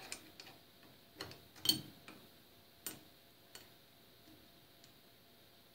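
Sharp metal clicks and clinks as a lathe's cutting-tool holder is shifted and reset in the tool post by hand, about seven knocks, the loudest a little under two seconds in. They die away after about three and a half seconds.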